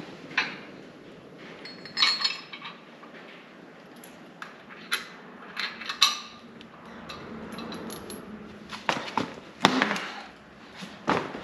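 Irregular metallic clinks and knocks of tools and parts being handled while fitting rear coil springs and insulators to a car's rear axle, about a dozen strikes with the loudest cluster near the end.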